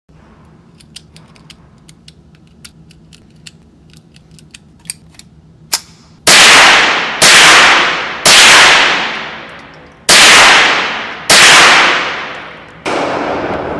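Five .22 LR shots from a Marlin 795 semi-automatic rifle, fired one at a time about one to two seconds apart, each ending in a long fading echo. Faint sharp clicks come before the first shot, and a steady noise follows the last.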